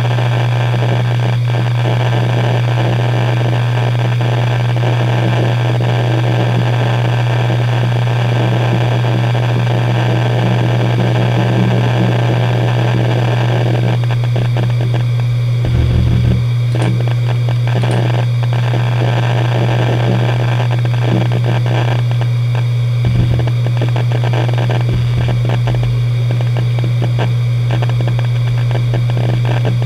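Hitachi Deskstar 7K1000.C 500 GB 7200 rpm hard drive spinning with a steady hum. Its heads seek busily in a dense stream of chatter as Windows 7 boots from it. About halfway through, once the desktop is up, the chatter thins to scattered clicks, with a few low thumps.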